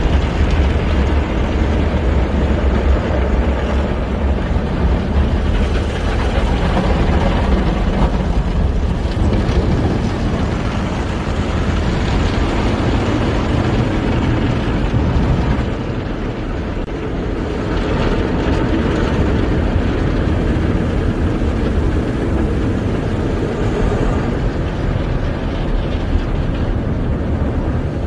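Automatic drive-through car wash heard from inside the car: water spraying onto the windshield and body over the rumble of the wash machinery, steady and loud, dipping briefly about sixteen seconds in.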